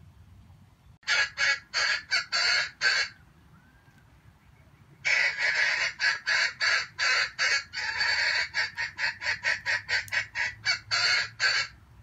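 Junglefowl cackling in two runs of rapid, harsh, repeated calls: a short run about a second in, then a longer one from about five seconds in that quickens to about four calls a second before stopping.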